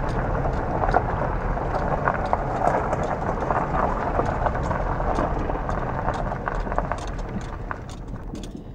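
Car tyres rolling slowly over a dirt and gravel road: a steady crunching rumble with many small clicks and knocks from stones, growing quieter near the end.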